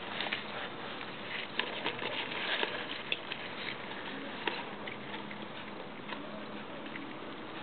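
Rustling and scattered light clicks as a hand handles fern fronds and beetles in a plastic tub, busiest in the first half and thinning out later, over a steady hiss.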